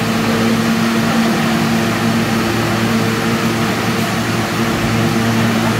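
A subway train's steady hum: a constant low drone with a few held tones over an even noise, unchanging throughout.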